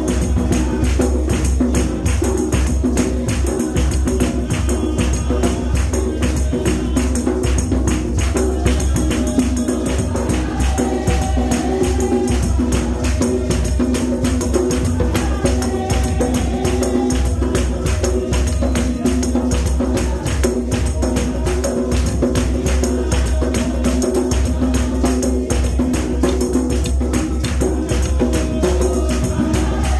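A congregation singing together, accompanied by tambourines shaken and struck in a steady, fast rhythm.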